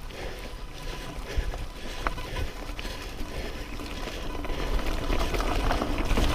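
Mountain bike rolling along a dirt trail: a rumble of tyres and wind on the microphone, with small rattles and clicks from the bike and a faint steady high tone, getting a little louder toward the end.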